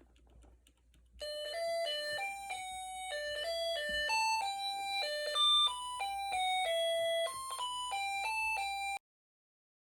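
A Snap Circuits music chip playing a simple electronic tune through its small speaker: plain beeping notes stepping up and down, starting about a second in and cutting off abruptly near the end.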